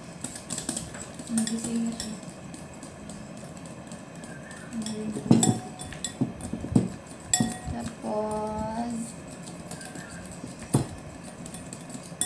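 Wire whisk beating pancake batter in a glass mixing bowl, with irregular clinks and taps of metal against glass.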